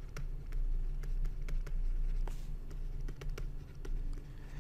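Stylus tapping and scratching on a tablet screen while handwriting: irregular light clicks, several a second, with an occasional short scratch, over a low steady hum.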